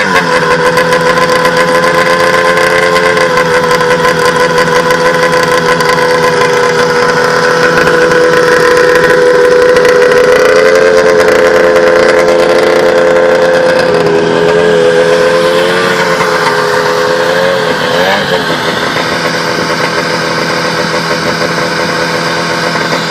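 1971 Arctic Cat Puma snowmobile's two-stroke engine running steadily at a fairly constant speed. Its pitch drops slightly about two-thirds of the way through, and the engine revs briefly up and down a little later.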